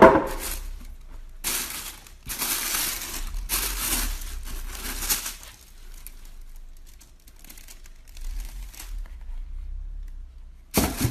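Tissue paper rustling and crinkling as it is handled and pulled back from boots in a shoe box. Loud rustling in several bursts of about a second in the first half, quieter handling after, and another short rustle near the end.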